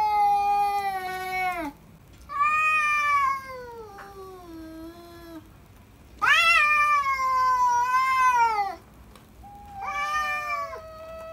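Cats yowling at each other in a fight standoff: four long, drawn-out threat yowls that bend and fall in pitch, with short pauses between them. This is a male cat warning off a stranger cat on his territory.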